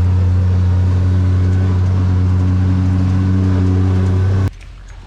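A vehicle engine running at a steady speed, a constant low drone with no change in pitch, which cuts off suddenly near the end.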